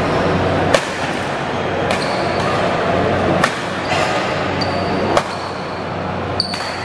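Badminton rally: rackets strike the shuttlecock five times in sharp smacks, roughly one every one to one and a half seconds. Short high squeaks of shoes on the court floor come between the hits, over a steady low hum and murmur.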